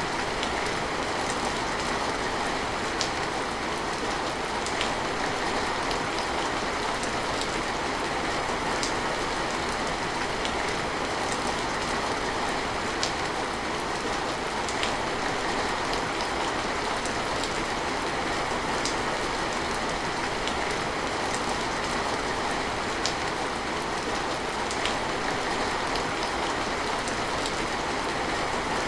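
Steady rain falling, with a sharp tick roughly every two seconds.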